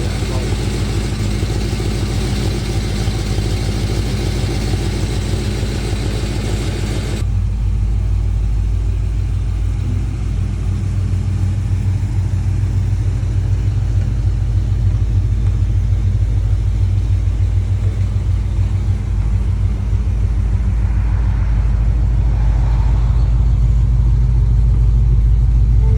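Holden VK Commodore SS Group A's 4.9-litre V8 idling with a steady low rumble; the sound turns duller about seven seconds in and grows slowly louder towards the end.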